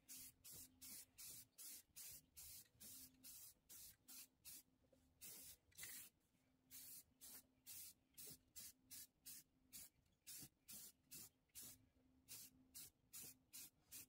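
Rust neutralizer sprayed onto rusty sheet metal in quick short bursts, about two or three a second, each a brief faint hiss.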